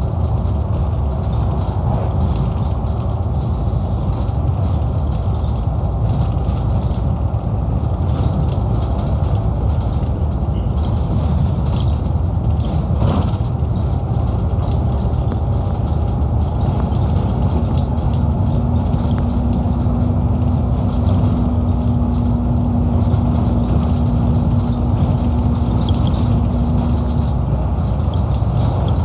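Scania K230UB bus on the move, heard from inside the saloon: steady low drone of its Scania DC09 five-cylinder diesel with road rumble. A steady whine sets in about halfway through and cuts off shortly before the end, with a single brief click about halfway.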